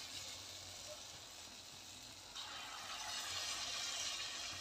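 Gulgule (sweet wheat-flour fritters) deep-frying in hot oil: a steady sizzle and bubbling that jumps louder about halfway through.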